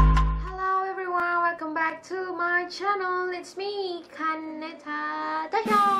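A young woman singing a short melody without accompaniment, in a run of brief held notes that bend in pitch, as the tail of electronic intro music dies away in the first half second.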